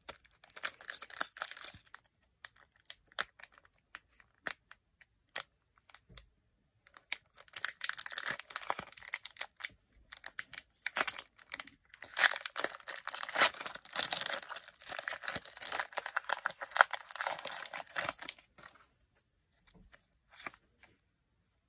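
Foil wrapper of a Pokémon trading-card booster pack crinkling and tearing as it is picked at and pulled open, in bursts, with the longest stretch of crinkling a little past the middle.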